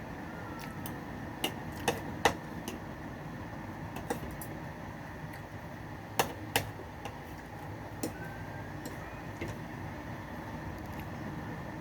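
Spoon and fork clinking against a plate while eating: a few sharp clicks, three close together about two seconds in and a pair about six seconds in, over a steady background hum.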